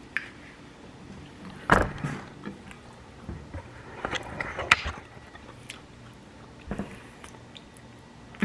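A few scattered clicks and knocks, the loudest a little under two seconds in and just before five seconds, over a low steady room hum.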